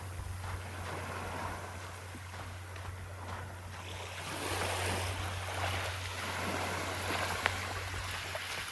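Small waves washing onto a beach, the wash swelling about halfway through, with a single sharp click near the end.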